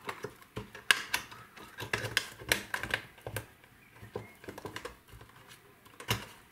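Clear plastic box being folded together by hand along its pre-scored creases: irregular crackles and clicks of the stiff plastic, the sharpest about a second in.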